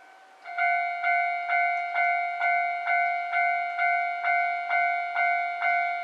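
Japanese railway level-crossing alarm starting about half a second in: an electronic bell tone struck over and over, about twice a second, each ding fading before the next. It is the crossing's warning that a train is coming.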